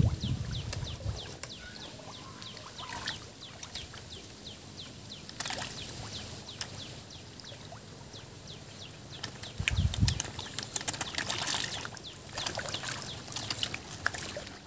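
Catfish splashing and smacking at the pond surface as they take floating feed, in scattered clicks and splashes. A bird chirps rapidly through the first few seconds, and there are low thumps at the start and about ten seconds in.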